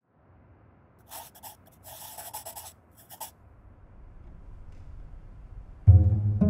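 Soft rustling and scratching for a couple of seconds, then near the end a viola da gamba comes in suddenly with low bowed notes.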